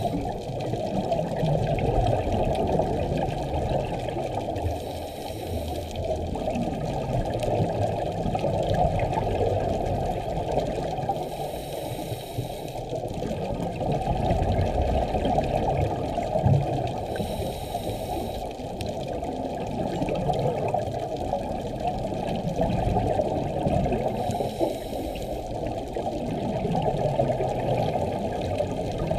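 A scuba diver breathing through a regulator, heard underwater through a camera housing: a brief hiss recurs about every six seconds, with gurgling exhaled bubbles between, over a steady muffled underwater wash.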